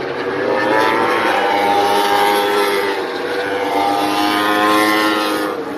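MotoGP racing motorcycles going by at high revs, their four-cylinder engines' note rising and falling in pitch. It swells twice and drops away near the end.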